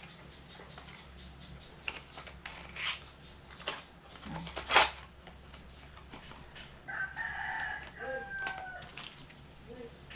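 A rooster crows once, a call of about two seconds near the end. Before it, several clicks and knocks, the loudest a sharp click about halfway through.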